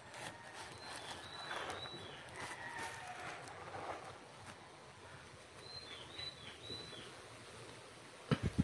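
A bird calling faintly in short high chirps that dip slightly in pitch, in two runs about a second in and again around six seconds, over quiet outdoor ambience. Near the end, a few sharp knocks are the loudest sound.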